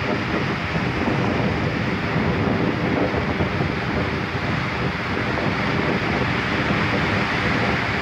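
Ocean surf breaking and washing over rocks along the shore, a steady rushing, with wind buffeting the microphone.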